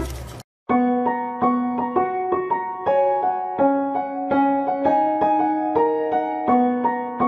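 Background music: a slow, gentle piano tune of single struck notes over a held lower note, starting just under a second in after a brief break in the sound.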